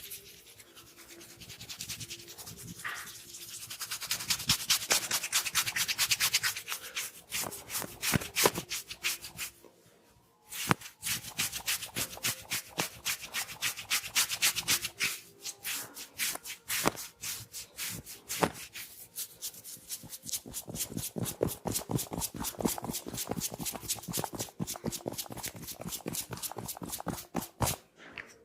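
Head massage: hands rubbing the scalp and hair in quick, repeated strokes, with a short pause about ten seconds in.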